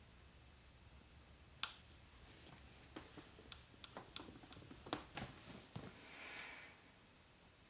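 Faint rustling and scattered soft clicks from someone shifting in bed, with a short swell of duvet rustling about six seconds in as she sits up.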